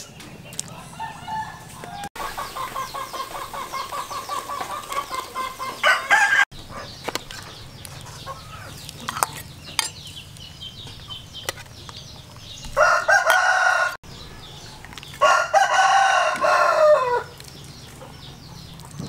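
Domestic chickens: a quick run of clucking for a few seconds, then a rooster crowing twice near the end, the second crow falling in pitch at its close.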